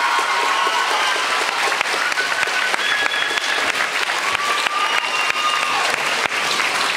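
Theatre audience applauding steadily, with some cheering voices over the clapping.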